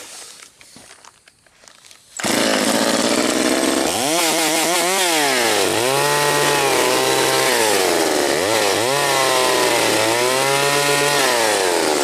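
Chainsaw starting suddenly about two seconds in, then revved up and down about four times as it cuts open mail parcels.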